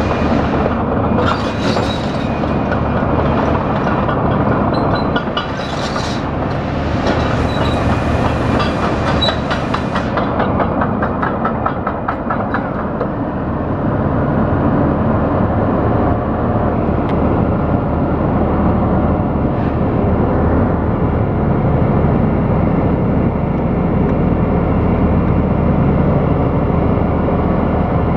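Liebherr R974 C crawler excavator's diesel engine and hydraulics running under load as the upper structure swings round. A fast rattling clatter rides over the engine for the first ten seconds or so, then the sound settles into a steady drone.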